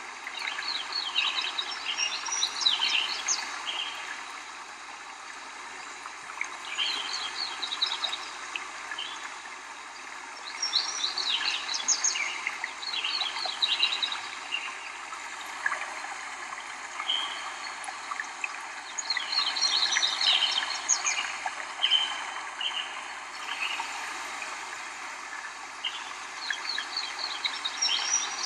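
Songbird singing: clusters of quick high chirps and trills recurring every few seconds, over a steady background hiss.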